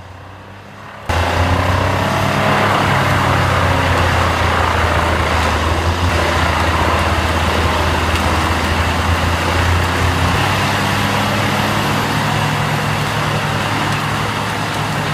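Heavy diesel-powered wood-processing machine running hard: a loud steady engine note under a dense grinding, crushing din. It cuts in abruptly about a second in, and the engine note shifts near ten seconds.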